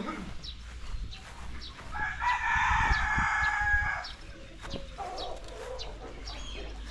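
A rooster crows once, a single drawn-out crow lasting about two seconds that starts about two seconds in, amid faint short high chirps.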